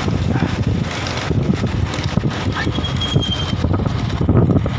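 Heavy wind buffeting the microphone over a low rumble, with a short high whistled tone about three seconds in.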